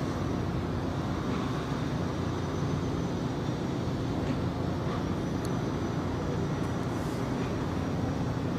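Sightseeing cruise boat's engine running at a steady cruise, a constant low drone.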